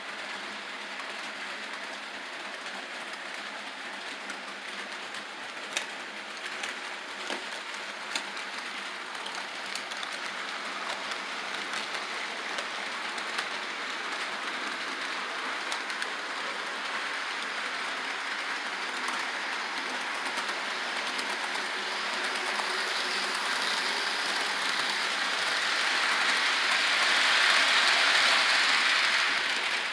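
HO scale model freight train running along the layout track: a steady rolling whir of wheels and motor with scattered clicks, getting louder toward the end as the cars pass closest.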